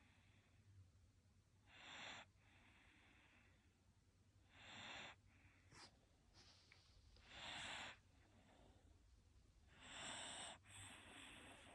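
Shiba Inu breathing in its sleep: soft, wheezy snoring breaths about every three seconds, two coming close together near the end.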